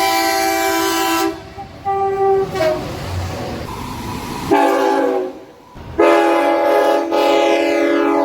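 Train air horn chords sounding in several blasts as trains pass, each a steady chord of several notes. About two and a half seconds in, and again right at the end, the pitch drops as the horn goes by. Between blasts there is the rushing noise of the passing train.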